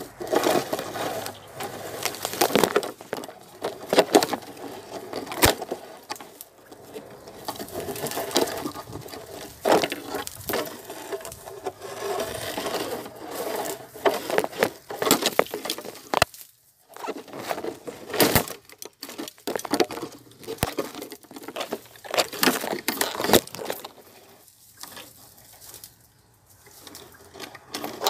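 Irregular rustling and crackling with many sharp clicks and knocks, stopping briefly about two-thirds of the way through.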